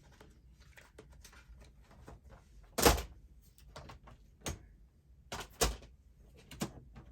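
Papers and craft supplies being handled and shuffled on a work table, with several sharp knocks as things are set down, the loudest about three seconds in.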